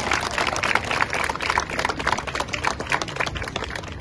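Crowd applauding: many hands clapping quickly and unevenly, tailing off near the end.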